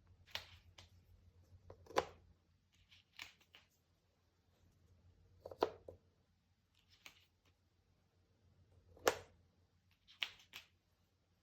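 Cardboard jigsaw puzzle pieces being handled and set down on a table: scattered sharp taps and clicks every second or so, the loudest about two seconds in and again about nine seconds in.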